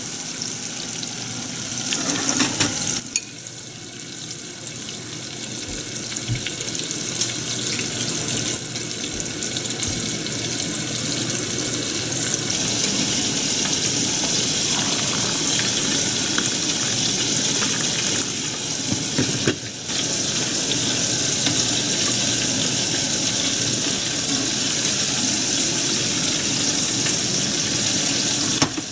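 Chicken karaage deep-frying in a pot of hot oil: a steady sizzling hiss, which dips briefly about three seconds in and again near twenty seconds.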